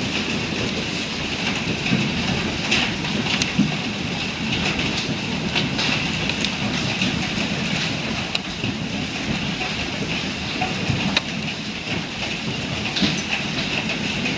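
Heavy hail falling: a dense, steady clatter of hailstones striking surfaces, with many sharp individual impacts standing out.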